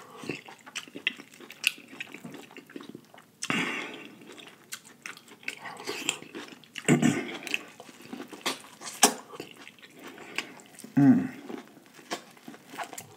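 Close-miked wet eating sounds of a buttery seafood boil, corn on the cob and shrimp: chewing, lip smacking and sucking, with many short wet clicks and a few louder bursts. A short low voiced sound comes about eleven seconds in.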